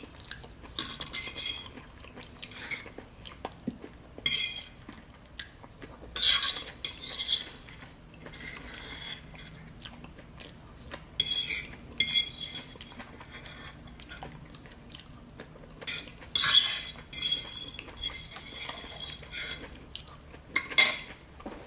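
A metal fork scraping and clinking against a ceramic plate as peas and mashed potatoes are scooped up, in short irregular bursts every few seconds.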